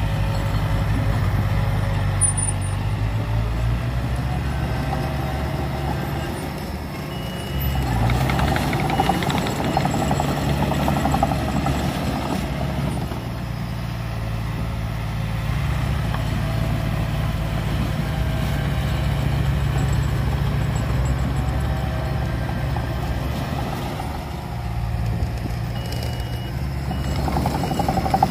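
Komatsu D20P crawler bulldozer's diesel engine running steadily as the machine pushes soil, getting louder about eight seconds in and again near the end. A few short high beeps sound twice, once about seven seconds in and again near the end.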